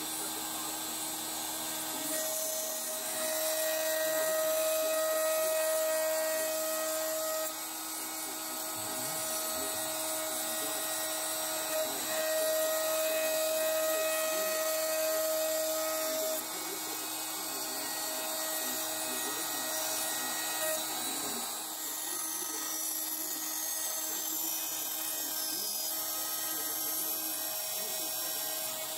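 CNC router spindle running steadily while its end mill cuts a dark hardwood guitar bridge blank. A louder, higher cutting note comes in twice, each time for about five seconds, as the bit works through the wood.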